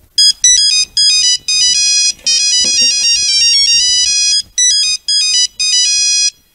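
Mobile phone ringtone signalling an incoming call: a fast electronic melody of beeping notes played in short phrases, stopping just before the end.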